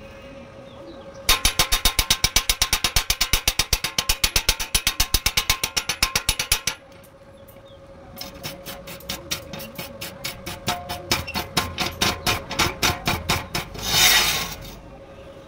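A fresh arc weld on steel being scrubbed by hand with a wire brush: fast rhythmic metal scraping strokes, about eight or nine a second, for about five seconds. After a brief pause comes a second, lighter run of strokes, ending in one longer, louder scrape.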